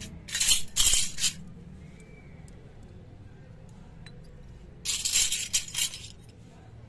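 Miniature stainless-steel toy pots and dishes clinking against each other and the concrete as they are set down, in two short bursts of jangling about four seconds apart.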